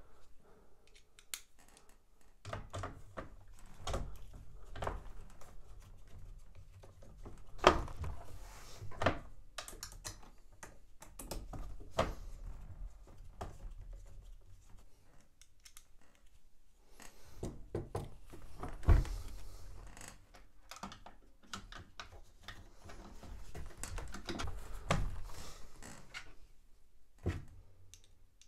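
Screws being driven back into the side panel of a Bluetti EB150 power station with a hand screwdriver: scattered small clicks and rattles of screws and tool handling, with two louder knocks, one about a third of the way through and one past the middle.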